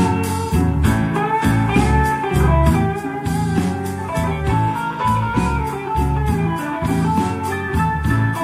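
Guitar music with a steady bass beat playing through Tandberg Studio Monitor loudspeakers driven by a Willsenton R8 valve amplifier.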